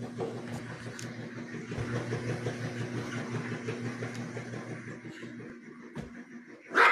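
Yorkshire terrier growling in play, a low rough rumble that swells in the middle and eases off, with a sudden louder sound at the very end.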